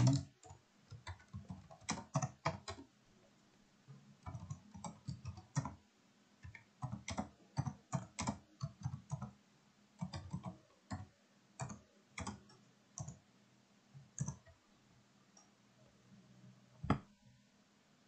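Computer keyboard being typed on: quick irregular runs of keystrokes with short pauses between them, and one louder single click near the end.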